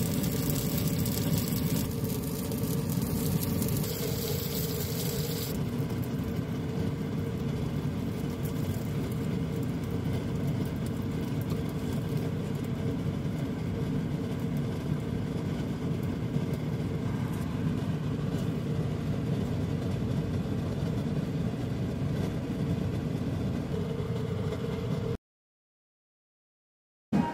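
Steady whirring hum of a kitchen fan, with the sizzle of an egg frying in a pan for about the first five seconds. The hum cuts off abruptly shortly before the end.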